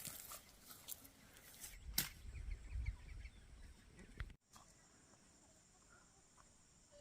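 Chickens in a farmyard: rustling and scuffling with several sharp knocks. About four seconds in, this cuts off abruptly to quieter outdoor background with a steady high hiss and a few faint bird chirps.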